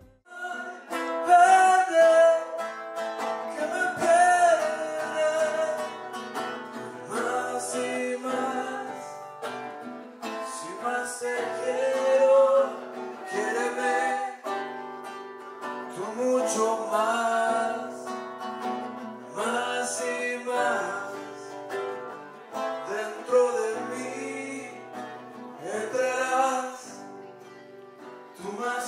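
A man singing a slow song into a microphone, backed by acoustic guitar, in phrases of a few seconds each.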